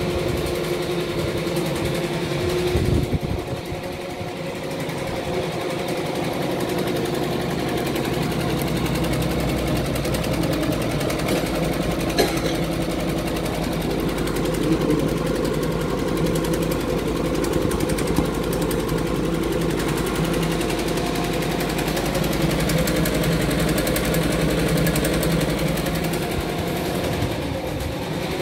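Two-head computerized embroidery machine stitching, its needles striking in a fast, steady rhythm over the continuous hum of the machine.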